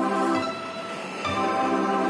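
Background music of sustained chords, changing to a new chord a little over a second in.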